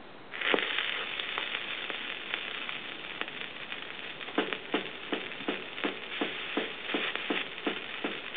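Steady crowd noise in a venue. From about four seconds in, a steady beat of sharp taps comes in, roughly two and a half a second, leading into a band starting to play.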